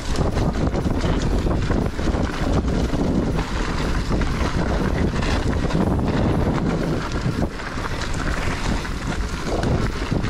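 Wind buffeting the camera microphone and tyres rolling over a dirt trail as a Giant Reign E electric mountain bike descends, with the bike rattling over bumps.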